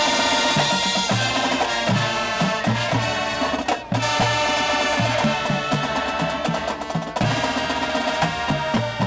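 High school marching band playing loud, held brass chords over a drumline's repeated drum hits, with short breaks about four and seven seconds in.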